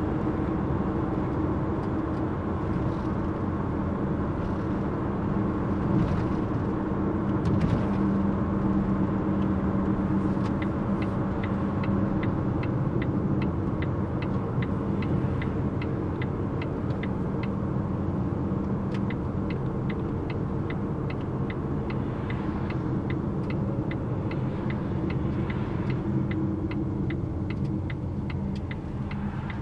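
Steady road and engine noise inside a moving car's cabin. From about ten seconds in, a light ticking about twice a second runs through it and fades out near the end.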